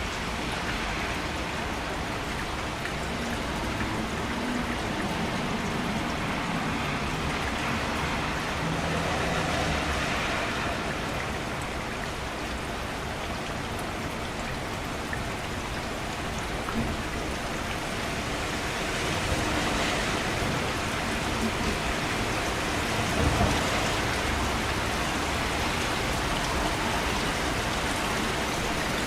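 Steady rain falling, with close drops pattering on a surface.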